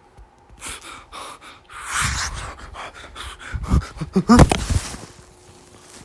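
A person gasping and breathing hard in irregular gusts, loudest about four seconds in.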